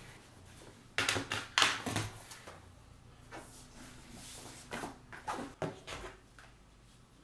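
A backpack being packed: bursts of fabric rustling and items knocking against the bag as things go in, about a second in and again around five seconds.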